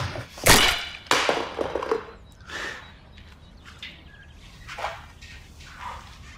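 A loud, sudden thump about half a second in, a raspberry-filled tart smashed against a baker's apron, followed by a short grunt-like voice sound and a few softer knocks and rustles.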